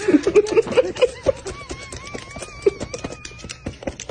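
Parrot making short squawky chatter, then a thin wavering whistle for a couple of seconds, over a run of sharp clicks.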